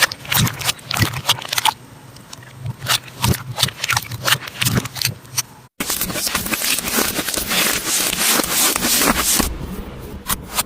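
Slime being handled, making a run of sharp, wet clicks and crackling pops. About halfway the sound cuts out briefly, then comes back as denser, continuous crackling that thins back to separate clicks near the end.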